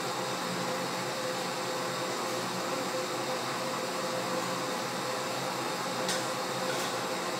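Kitchen range-hood fan running with a steady whir and a faint constant tone, with two faint clicks near the end.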